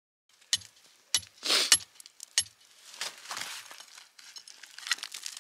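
A hammer striking rock: about four sharp, clinking blows roughly half a second apart, with broken pieces crumbling between them, then lighter scattered clinks of rock fragments.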